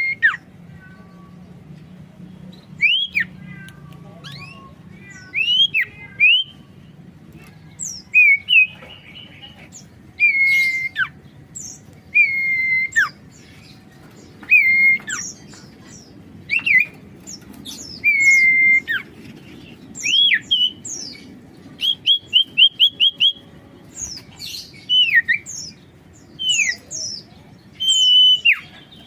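A common iora (sirtu, cipoh) singing: clear whistled notes, some falling in pitch and some held level, repeated every second or two. About three-quarters of the way through there is a quick run of short repeated notes. A steady low hiss lies underneath.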